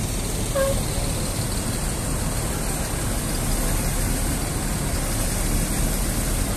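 Mercedes-Benz OH1626 coach's rear-mounted six-cylinder diesel engine running steadily at low revs as the bus pulls slowly away, a deep even rumble. A short high tone sounds once about half a second in.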